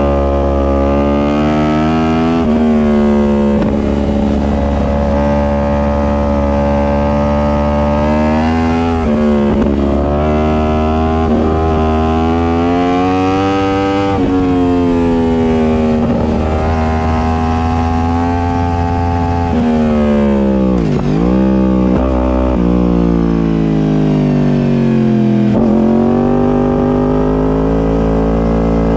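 Sport-bike engine revving hard through the gears: its pitch climbs and then drops at each gear change, over and over, with a sharp dip and quick recovery about two-thirds of the way through. A steady low rumble runs underneath.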